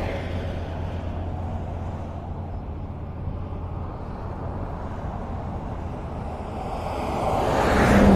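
Highway traffic: a car passing fades away as the sound begins, leaving a steady low rumble of road noise, then another vehicle approaches and passes close by near the end, its tyre and engine noise swelling up and falling away.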